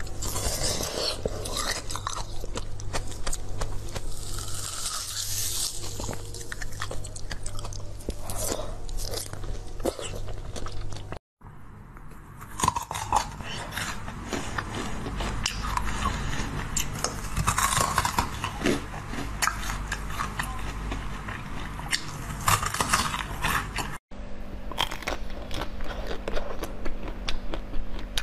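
Close-miked biting and crunching of hard frozen ice: sharp cracks as pieces snap off, then crackling chewing of the ice chunks. The sound drops out briefly twice.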